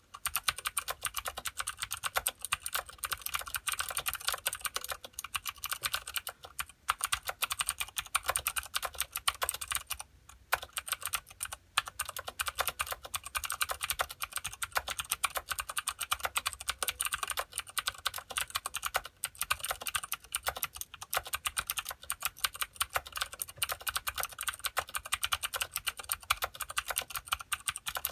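Continuous fast typing on a Filco Minila mechanical keyboard with clicky Cherry MX Blue switches and thin ABS keycaps, a dense run of sharp clicks with a few short pauses.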